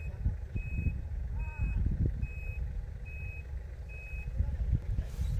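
A vehicle's reversing alarm beeping steadily, a short high beep a little under once a second, over a low rumble.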